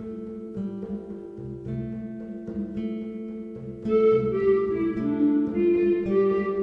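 Background music with plucked and bowed strings, growing louder and fuller about four seconds in.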